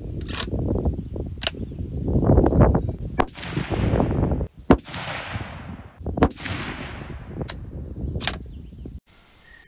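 Ruger American bolt-action rifle in 6.5 Creedmoor firing several shots. Each is a sharp crack followed by an echo that rolls off for a second or so.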